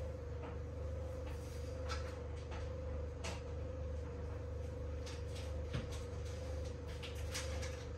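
Light, scattered clicks and taps of food being handled at a kitchen worktop, more frequent in the second half, over a steady low hum with a constant mid-pitched tone.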